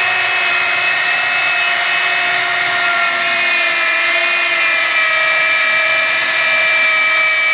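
Corded electric drill boring down into a block of wood, its motor whining steadily under load. The pitch dips slightly in the first few seconds as the bit is pressed in, then holds.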